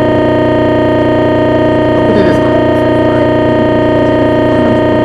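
Loud, steady buzzing noise with many overtones on the recording, an audio fault that drowns out the faint talk beneath it.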